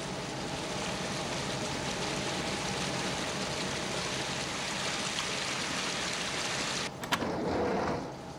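Subway train running through a tunnel, a steady rumbling rush of wheels and motors. About seven seconds in, a sharp click and a short rush of noise, after which the rumble drops away.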